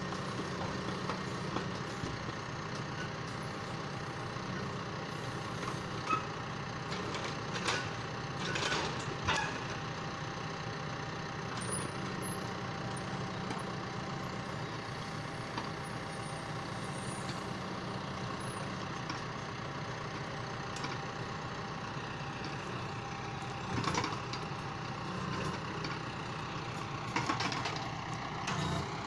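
John Deere 6115M tractor's diesel engine running steadily while it powers a timber trailer's hydraulic crane. A few short knocks and clunks of the grapple and logs come about six to nine seconds in, once more a little past the middle, and near the end.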